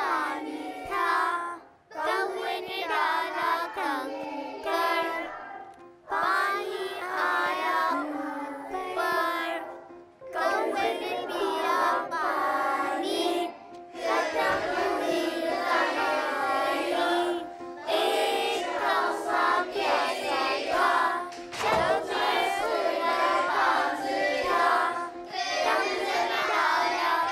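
A group of young children singing a song together, in sung lines broken by short pauses about every four seconds.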